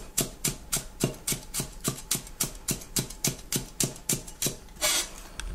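Chinese cleaver mincing a red chilli on a wooden chopping board: a steady run of sharp chops, about four a second, that stops near the end with a short scrape.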